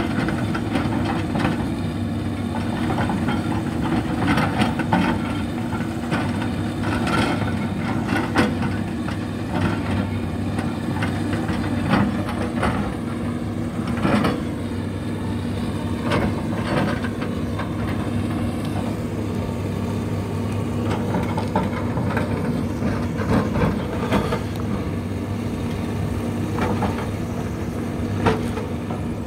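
CAT 320D excavator's six-cylinder diesel engine running steadily under work, with frequent irregular knocks and cracks as the bucket works through felled trees and branches.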